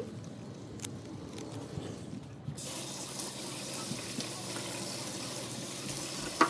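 Kitchen faucet running steadily onto green onions in a stainless steel sink as they are rinsed by hand, starting suddenly about two and a half seconds in. Before it, faint scattered clicks and rustles among onion stalks in the garden, and a sharp knock near the end.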